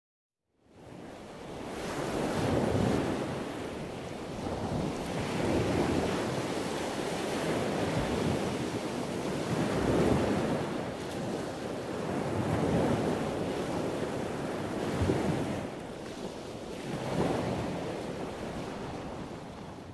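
Ocean waves washing in, a noisy surf sound that swells and ebbs every two to three seconds. It fades in about a second in.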